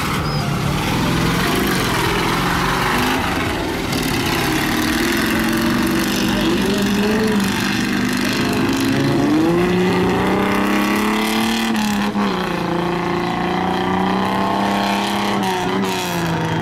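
Off-road 4x4 race jeeps' engines running and revving, the pitch rising and falling several times, over the noise of a crowd.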